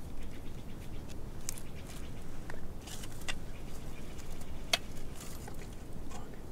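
Steady low outdoor rumble with a handful of sharp clicks and ticks scattered through, the loudest a little past the middle.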